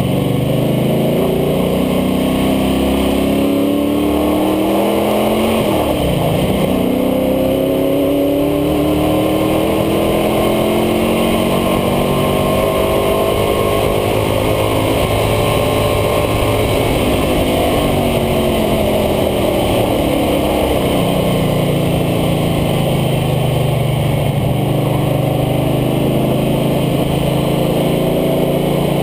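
International Harvester Scout II's engine pulling hard on a race track, heard from low on the front of the truck over a constant rush of road and wind noise. The revs dip briefly about six seconds in, climb steadily for several seconds, then fall away about two-thirds of the way through.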